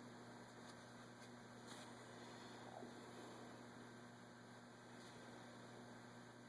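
Near silence with a steady low electrical hum.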